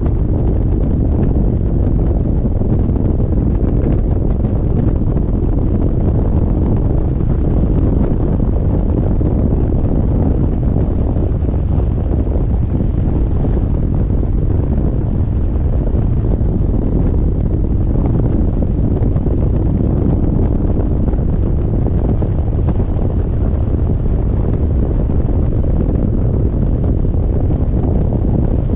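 Steady, loud wind rush buffeting the microphone of a motorcycle ride at speed, with no clear engine note above it.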